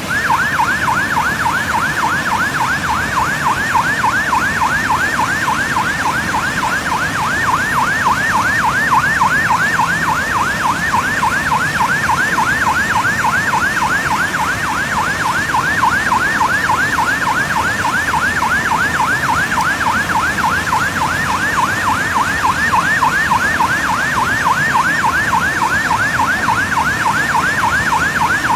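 Electronic siren in a fast yelp, its pitch sweeping up and down rapidly, several times a second, over a steady background rush of noise.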